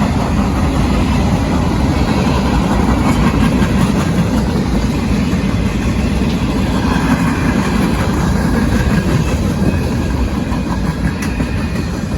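A train going by: a steady rumble of engine and rail cars on the track, with no horn.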